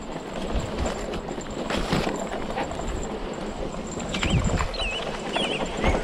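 Cube Acid Hybrid hardtail e-mountain bike rolling over a bumpy grass trail: a steady rough rumble with knocks and rattles from the bike. About four seconds in, a bird starts singing in short warbling phrases.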